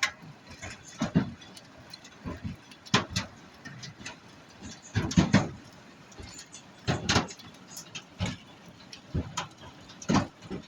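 Hailstones striking the roof of a trailer, heard from inside: irregular loud knocks, spaced a fraction of a second to a second or so apart, over a steady hiss of falling rain and hail.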